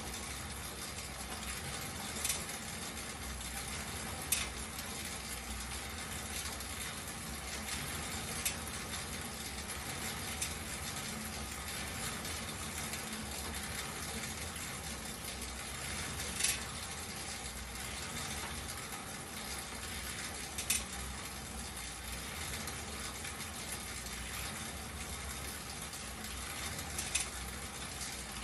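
Schwinn fan exercise bike being pedalled: its fan wheel whirs with a steady rush of air, broken by a few sharp clicks.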